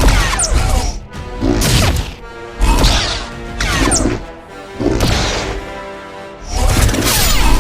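Star Wars lightsaber clash and swing effects: about six sudden loud hits, each dying away with a crackling sizzle, over a steady humming tone.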